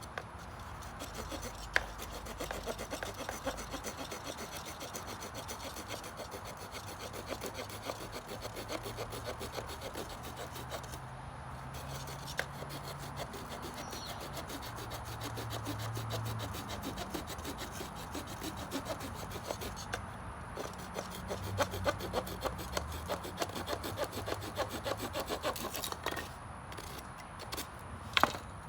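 Small saw blade of a Leatherman multitool sawing back and forth through a wooden 2x4 in quick strokes, pausing briefly twice, the strokes getting sharper toward the end, with a sharp knock near the end.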